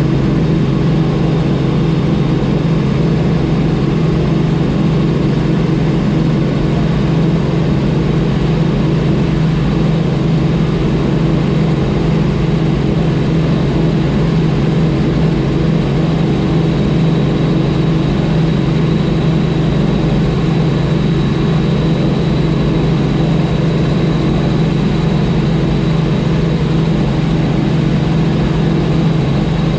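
Helicopter in cruise flight heard from inside the cabin: a steady, loud engine and rotor drone. A faint high whine joins in a little past halfway.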